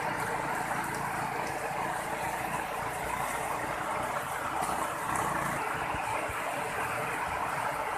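Steady heavy rain falling on the ground and water, an even hiss with no breaks.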